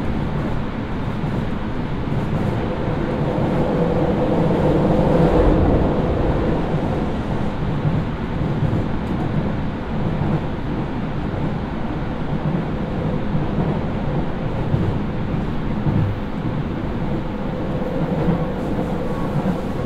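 Hokuso Railway Type 9100 electric train running at speed, heard from inside the car: a steady rumble of wheels on rail. It swells a little about four to six seconds in with a faint held tone, and the tone comes back near the end.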